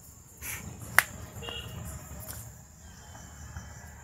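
Steady high-pitched insect buzz over a low outdoor rumble. A short swish comes about half a second in, then a single sharp click about a second in, the loudest sound.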